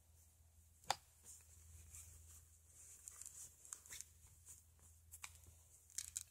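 Near silence with faint rustling of a fleece sleep sack being pulled on and smoothed by hand, and one sharp click about a second in.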